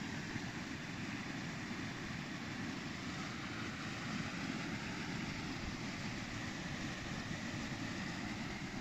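Steady rushing of a small mountain stream over rocks, under a low rumble of wind on the microphone.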